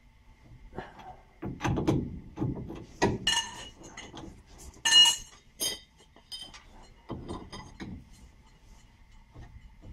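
Metal tools and parts clinking and knocking against each other in an uneven series, with a loud ringing metallic clank about five seconds in.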